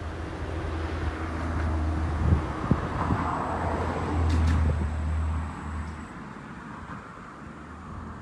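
Wind buffeting the microphone with a low rumble that drops away about six seconds in, over a broad hiss that swells and fades, peaking about three seconds in.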